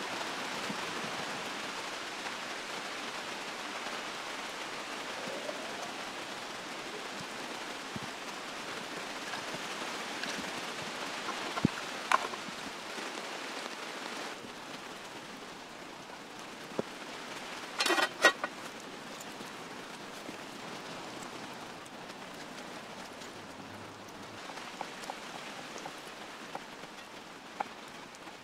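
Steady rain falling in woodland and on a tarp, with drops running off its edge. A few sharp taps stand out, the loudest cluster about two-thirds of the way through, and the rain slowly fades.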